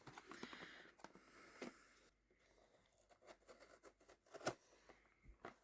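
Faint rustling and a few light clicks and taps as a small cardboard blind box is handled before it is opened.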